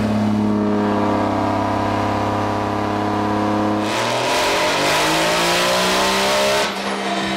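Single-turbo Dodge Cummins inline-six diesel running on a chassis dyno through a long plastic pipe strapped to its exhaust. It holds a steady pitch at first, then about four seconds in it goes into a pull with revs climbing and a loud rush of turbo and exhaust noise, which cuts off sharply near the end.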